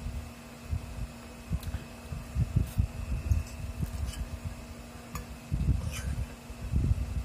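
Close-up eating sounds: chewing and mouth noises from a mouthful of spaghetti, irregular and low, with a few light clicks of a metal fork against a glass bowl. A steady faint hum runs underneath.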